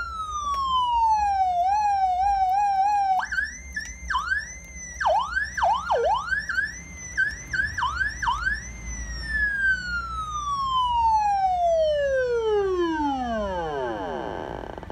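Electronic police-style "113" siren for a motorcycle, stepping through its tones. A falling tone turns into a fast warble, then a run of sharp downward swoops from a high pitch lasts about five seconds, then one long glide falls from high to low.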